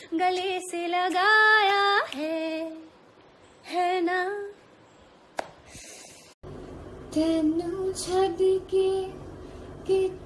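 A woman singing alone with no instruments, in short held phrases with pauses between them. A little over six seconds in, it cuts to another woman singing over a steady low hum.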